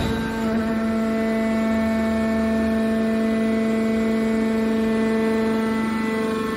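Hydraulic power unit of a scrap metal compressing machine running: the electric motor and oil pump give a steady, pitched hum.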